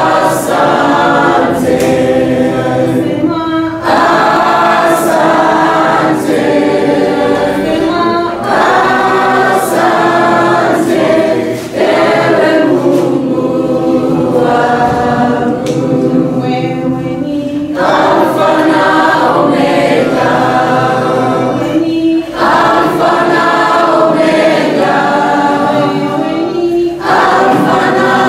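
Music soundtrack of a choir singing, many voices together in phrases a couple of seconds long, with short breaks between them.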